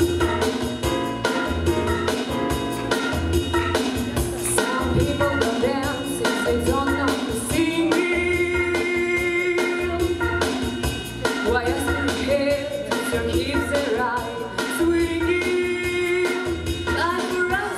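A girl's solo singing voice through a microphone over a pop backing track with a steady drum beat.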